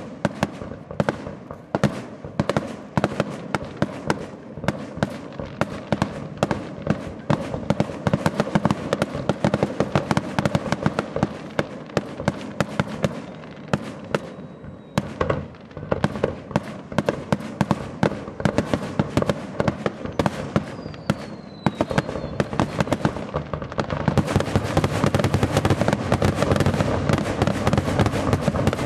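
Aerial fireworks shells bursting in rapid succession, a dense run of bangs and crackling that grows louder and almost continuous near the end.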